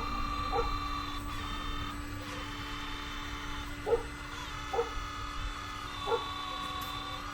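Hydraulic pump of a scale RC hydraulic excavator whining under load. The tone steps up and down and breaks off briefly as the controls work the boom and bucket valves. A few short, sharp sounds stand out over it.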